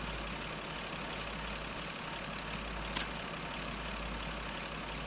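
Steady low rumble and hiss of background noise, unchanged across the scene, with a faint click about three seconds in.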